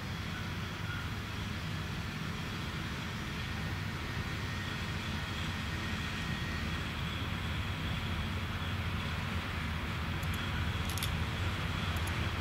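Distant low rumble of an ET22 electric locomotive hauling a heavy train as it approaches, growing slowly louder, with a faint steady whine above it. A few faint clicks come near the end.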